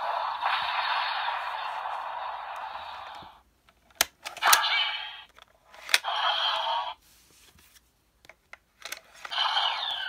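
Bandai DX Valvarusher roleplay toy playing electronic sound effects through its small speaker, thin and with no bass: a long noisy effect fading out over about three seconds, then sharp plastic clicks of the toy's buttons or card slot with short electronic bursts after them, and a new effect starting near the end.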